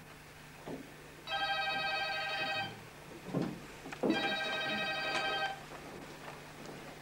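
Telephone ringing twice, each ring a warbling trill about a second and a half long, with a few soft knocks between the rings; it stops after the second ring as the handset is picked up.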